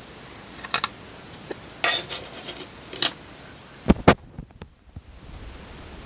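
Hard little clicks and taps as the hood is taken off a scale model car and the model is handled, with a short scrape around two seconds in and two sharper knocks about four seconds in.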